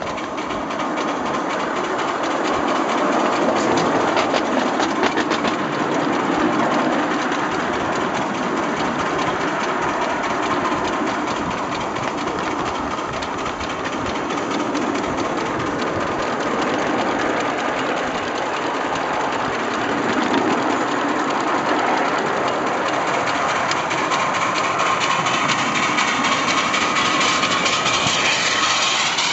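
7¼-inch gauge live steam locomotive running steadily along the track, heard from just behind its cab: a fast, continuous chuffing mixed with wheel and rail noise, at an even level throughout.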